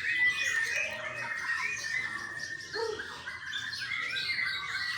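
Several white-rumped shamas singing at once: a dense, overlapping run of whistles and chirps.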